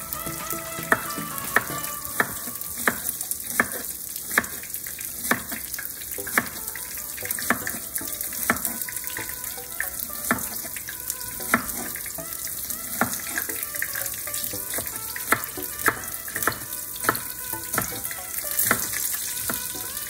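Chef's knife chopping an onion on a bamboo cutting board, a sharp knock about once a second, over the steady sizzle of breaded sea robin (gurnard) fillets pan-frying in oil.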